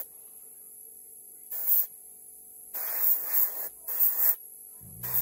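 Airbrush spraying paint onto a plastic model in four short hissing bursts, the longest about a second, over a faint steady hum.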